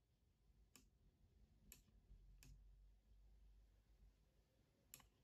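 Near silence broken by five faint single clicks, four in the first two and a half seconds and one near the end, from clicking at the computer.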